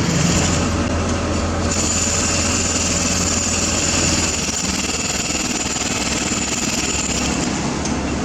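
Heavy diesel machinery running steadily, with a low engine hum and a high hiss that grows stronger about two seconds in.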